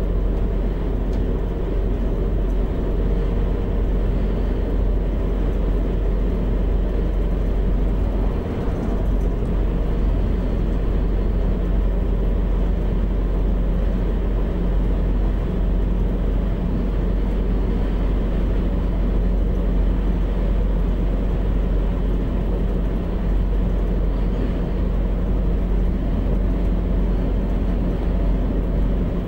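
Siemens Desiro (DB class 642) diesel multiple unit running at speed, heard from the driver's cab: a steady low diesel-engine drone mixed with the rumble of wheels on the rails.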